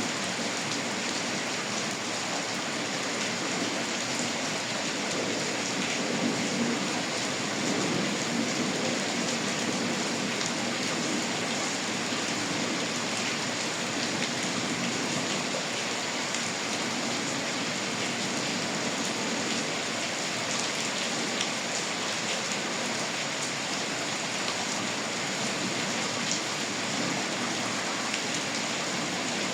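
Steady rainfall, a dense even hiss of drops falling on surfaces, with faint individual drop ticks.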